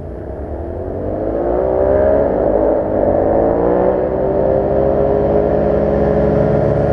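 Motorcycle engine under throttle, climbing in pitch over the first two seconds and then holding a steady high note.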